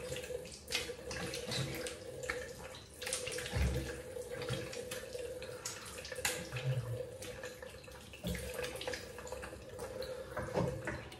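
Bathroom tap running into a sink while water is splashed onto the face with the hands, rinsing off lather after a shave: a steady flow with irregular splashes over it.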